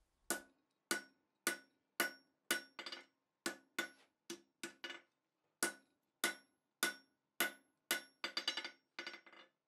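Hand hammer striking hot steel bar stock on an anvil, about two ringing blows a second with a few quick lighter taps in between, setting down the shoulder of a 60-degree bend in the bar.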